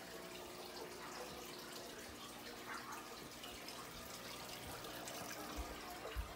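Fish-tank filter trickling water steadily into an aquarium, with a few soft low thumps near the end.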